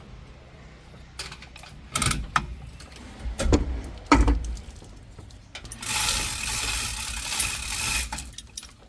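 Metal tools clanking and knocking on heavy truck parts, several sharp knocks in the first half, then about two and a half seconds of steady rushing mechanical noise.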